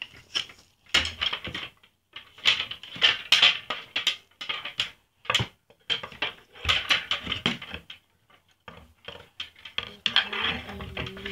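Metal wardrobe door handles and wire coat hangers rattling and clinking as they are handled, in several bursts of quick clicks with short pauses between.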